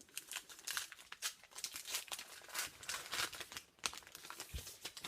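Crinkling and tearing of a hockey card pack's wrapper as it is torn open and handled, a dense run of irregular crackles.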